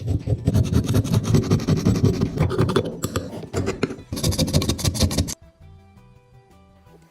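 Rapid scraping strokes on metal, abrasive work on the rusty toy truck's metal body or parts, for about five seconds before stopping suddenly, with background music under it.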